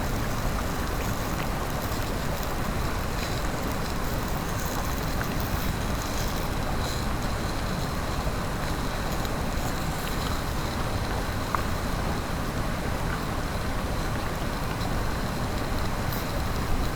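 Mountain stream rushing steadily, with a few faint clicks.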